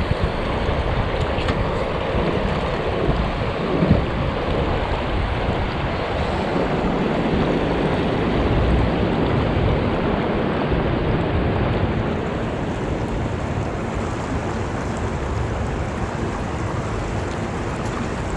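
Steady rush of a fast-flowing river current, with wind buffeting the microphone and a brief knock about four seconds in.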